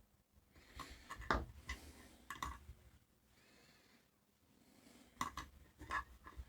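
Small clicks and taps of tools and parts being handled at a workbench, in two short clusters: one about a second in and one about five seconds in.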